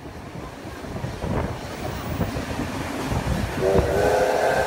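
Steam train running with a rumble of wheels and rails that grows louder, heard from a carriage window. About three and a half seconds in, a steam locomotive's whistle starts blowing and is held.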